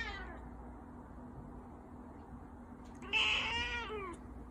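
Persian cat meowing: a falling meow fades out at the start, then one louder, longer meow comes about three seconds in, rising and then falling in pitch.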